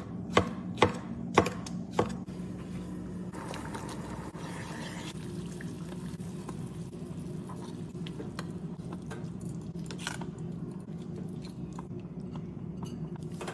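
A knife chopping peaches on a wooden cutting board: four sharp strikes in the first two seconds. Then a steady low hum with a faint sizzle from chicken cooking in a skillet, with light clicks of metal tongs.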